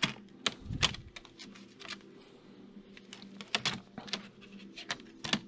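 Stacked 45 rpm vinyl records clacking against each other as they are flipped through one by one in a box: a series of irregular sharp clicks.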